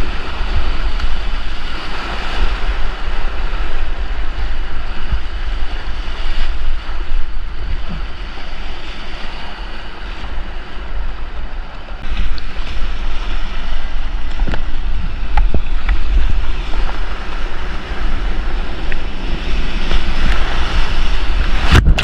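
Rushing whitewater around a kayak, with heavy wind buffeting on the camera microphone and a few sharp knocks in the middle of the stretch.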